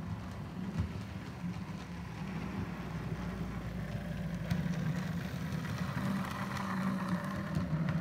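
OO gauge model Class 47 diesel locomotive running along the track toward the listener, a steady engine-like hum that grows a little louder about halfway through as it approaches.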